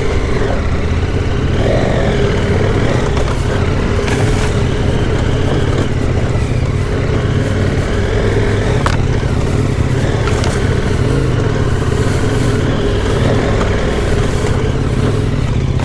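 Adventure motorcycle engine running steadily at low speed on a rocky dirt track, with a few sharp knocks along the way.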